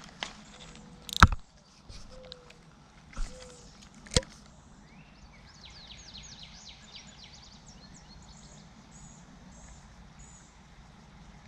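Quiet creekside ambience broken by a few sharp knocks, the loudest about a second in. A songbird follows, singing a quick run of short falling notes, with a few high chirps later on.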